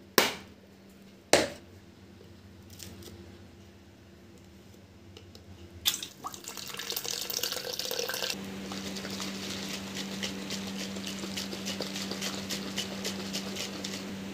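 Two sharp clicks, then water pouring from a spout into a plastic shaker bottle, splashing and trickling steadily from about six seconds in.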